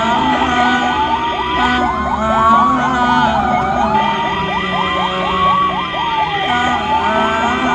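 Ambulance siren sounding continuously. A slow wail rises and falls every few seconds over a fast yelping tone of about five short sweeps a second.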